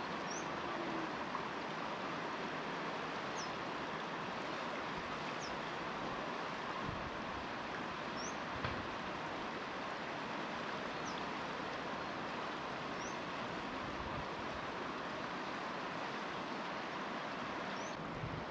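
Steady rush of a fast-flowing river. A small bird gives a short, high chirp every couple of seconds.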